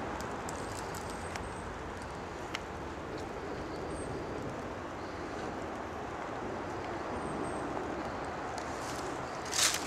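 A mountain brook's water rushing steadily, with a few faint clicks and a louder crunching step near the end.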